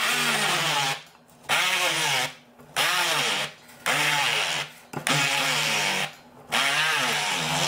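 Immersion blender motor run in six short pulses of about a second each, puréeing cooked chickpeas with sesame seeds, garlic, spices and olive oil into thick hummus; its pitch rises and falls within each burst.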